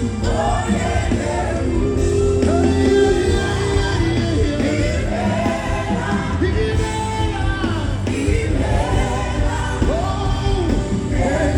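Music with singing over a steady, heavy bass.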